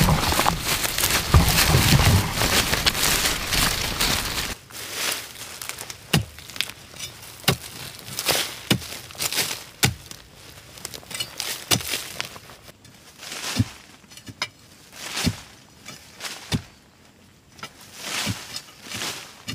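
Close rustling and crackling of dry leaves and grass being pushed through by hand. After a sudden change, a stick is jabbed into the earth again and again, giving separate dull knocks about every second or so.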